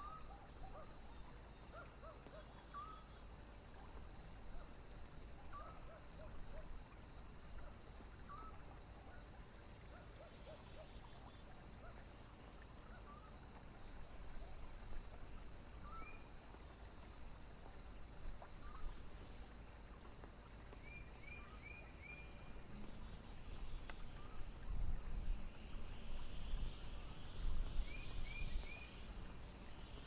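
Crickets chirping steadily at about two chirps a second, with other short chirping calls here and there. Wind gusts under them and grows louder over the last several seconds.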